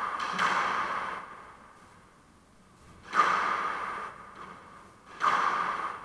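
Squash rally: the ball cracks off rackets and the court walls in sharp reverberant hits, roughly every two seconds, each echoing briefly around the enclosed court.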